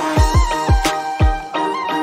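Background music: a held, slightly bending melody over a steady beat of deep, falling-pitch drum hits.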